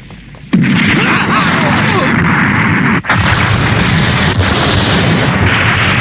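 Cartoon explosion sound effect: a sudden loud blast about half a second in, then a continuous heavy noise of ongoing blasts with a brief break about three seconds in. This is the ship blowing up from the planted time bombs.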